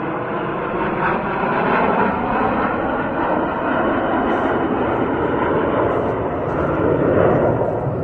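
Jet engines of the Frecce Tricolori formation of Aermacchi MB-339 jet trainers flying past, a loud, steady rushing noise.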